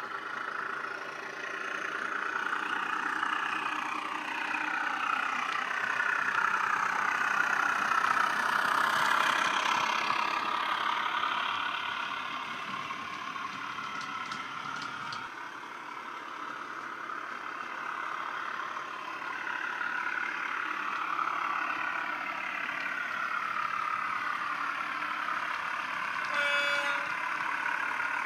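Heljan North British 10800 model diesel locomotive's LoKsound DCC sound decoder playing the diesel engine sound through the model's small 22x13 mm speaker as it runs under power, the engine note rising and falling. A short horn toot sounds near the end.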